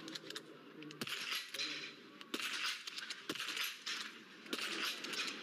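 Biathlon .22 rifles firing on the standing range: sharp single shots at irregular intervals, the loudest about a second and about three seconds in. Crowd noise swells and falls between the shots.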